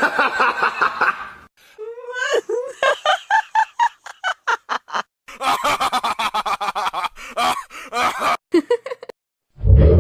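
Cartoon character laugh sound effects played one after another: three or four separate laughs, each a fast run of pitched 'ha' pulses, one opening with a rising voice. Just before the end a deeper, lower laugh begins.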